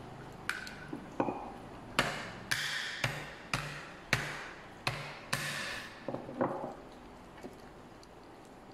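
Wooden pestle pounding a steamed crab's shell to crack it open, about a dozen sharp knocks at roughly two a second, each with a short ring, stopping about six and a half seconds in.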